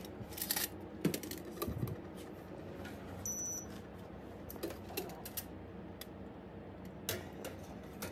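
Stainless steel nail tools clinking and rattling in a stainless kidney dish as it is handled and set on the wire rack of a sterilizer cabinet: a scattered series of sharp metallic clinks, loudest a second or two in. A brief high tone sounds about three seconds in.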